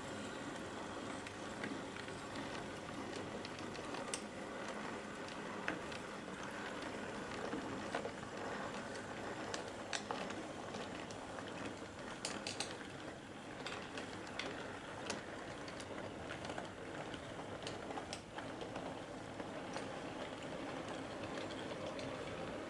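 Model goods train running on the layout: the model NER class 398 locomotive's small motor and gears whirring steadily, with the wagons' wheels clicking irregularly over rail joints and pointwork.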